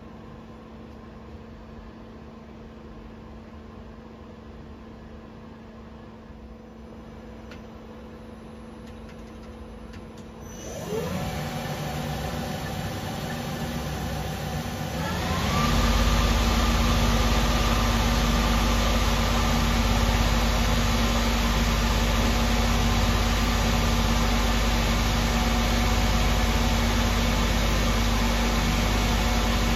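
Takang TNC-10T CNC lathe running. A steady low hum at first; about ten seconds in a motor starts and spins up with a rising whine, and about five seconds later the sound steps up again to a loud, steady running with a constant whine.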